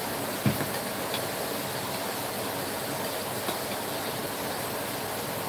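Steady rushing hiss with a few light knocks and clinks of utensils against crockery as a spoon and tongs are handled at a bowl of sauce. The sharpest knock comes about half a second in.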